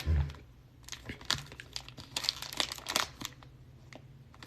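Cellophane-wrapped trading-card packs crinkling and rustling as they are handled, with a soft thump at the very start.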